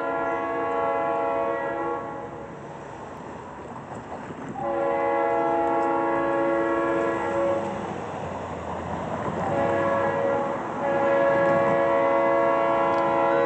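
Diesel freight locomotive's multi-chime air horn blowing the grade-crossing signal: the end of a long blast, then a second long blast, a short one and a final long one, over the rumble of the train.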